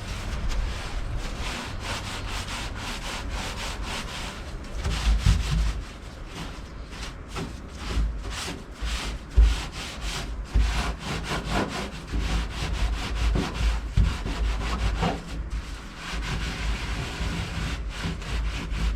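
Rapid back-and-forth rubbing and scraping strokes on a bare steel car floorpan, wiping off a coating that chemical stripper has softened, with occasional low knocks.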